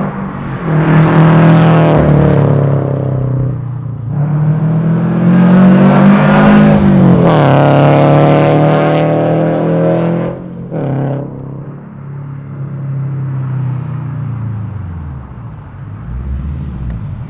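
2022 Toyota GR86's flat-four engine through a 3-inch single-exit exhaust with a catless header, heard from inside the car with the windows down. The revs climb hard in several pulls with upshifts between, a short blip comes about eleven seconds in, then the engine settles and the revs fall away.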